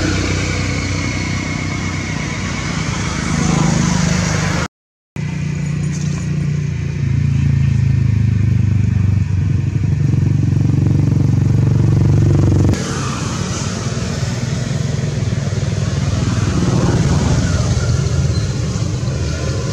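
Motor vehicle engines running nearby, a steady low drone with slow rises and falls in pitch near the end, as of motorbikes passing. It cuts out briefly about five seconds in.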